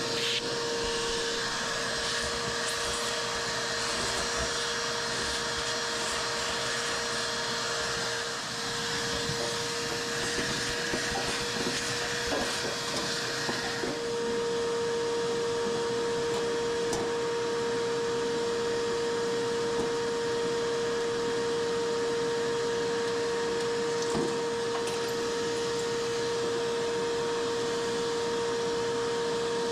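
Vacuum cleaner running steadily with a constant whine over the rushing of air, sucking packed lint out of a clogged dryer. About fourteen seconds in the hiss of the airflow drops and the whine carries on alone.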